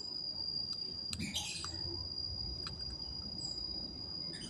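A few light clicks and taps of small laptop parts being handled as the keyboard ribbon-cable connector is fitted. Behind them run a steady high-pitched tone and short chirps, like insects or birds.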